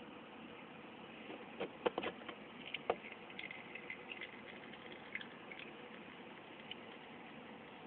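A handful of sharp clicks and light knocks over a steady background hiss, bunched about two seconds in and thinning to a few faint ticks.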